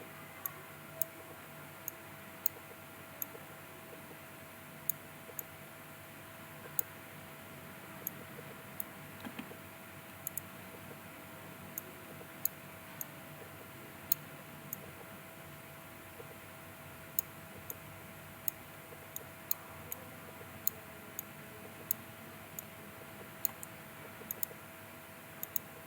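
Computer mouse button clicking, short sharp clicks at irregular intervals of about half a second to a second, over a faint steady hum.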